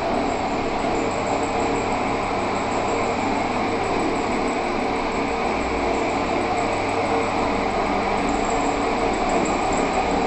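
Electric single-disc concrete floor grinder running steadily with a 1500-grit resin pad, polishing a concrete floor: an even motor hum under the hiss of the pad grinding the concrete.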